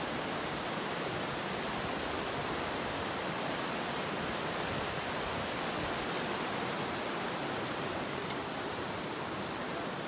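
Fast mountain creek rushing over rocks in whitewater: a steady, even rush of water.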